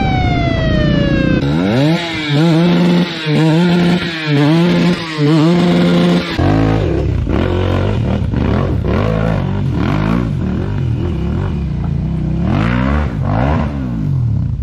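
Dirt bike engine revving. At first the pitch falls, then it rises and holds about four times in a row; about six seconds in it changes to uneven revving up and down in short bursts as the bike is ridden through rough ground.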